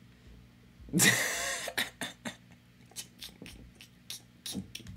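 A man's single short, harsh cough, about a second in. Faint sharp clicks follow, a few a second and irregular.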